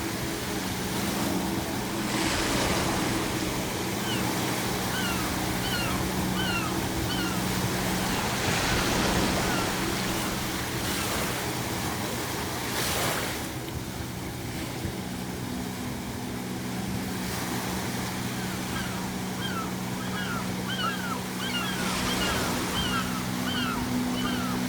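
Ocean waves crashing in repeated swelling washes, with seagulls calling in quick runs of short cries, a few seconds in and again near the end. Underneath is a low sustained background drone whose notes shift partway through.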